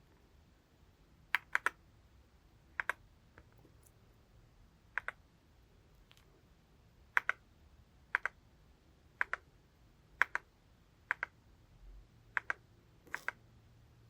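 Yunzii C75 mechanical keyboard with Candy switches, single keys pressed one at a time about once a second. Each press is a quick pair of sharp clicks.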